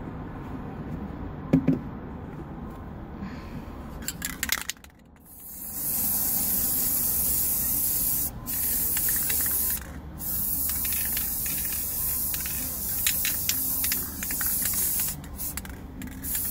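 Aerosol spray paint can spraying in several long hisses with brief breaks, starting about six seconds in. Before that there is quieter handling, with a sharp knock about one and a half seconds in.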